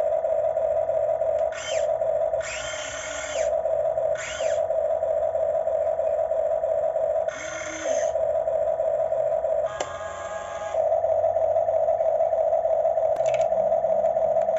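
Radio-controlled Huina model excavator's electric motors running with a steady hum as it moves its boom and bucket. The hum is broken several times by short bursts of rising and falling motor whine.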